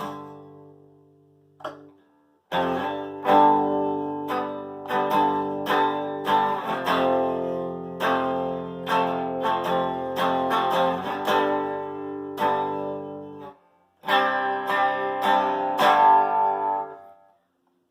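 Harley Benton TE-30 Telecaster-style electric guitar on its neck pickup, played clean through a Marshall Origin amp head with no compression or reverb. A chord rings out and fades, then strummed chords and picked notes start about two and a half seconds in, break off briefly near the end, and pick up again for a few more seconds.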